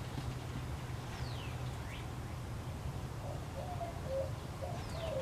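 Birds calling: a few short falling whistled calls, then from about halfway on a run of short, low steady notes, over a steady low hum.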